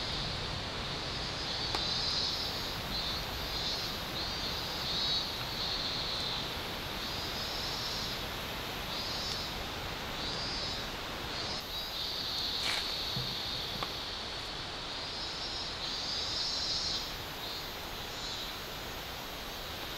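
Insects shrilling in a high, pulsing chorus that swells and breaks off in short phrases, over a steady outdoor hiss. A single sharp click sounds a little past halfway.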